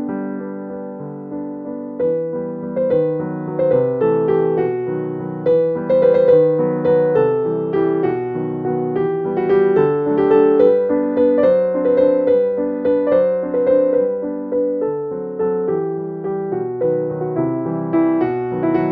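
Background piano music, a run of struck notes that sound and fade one after another.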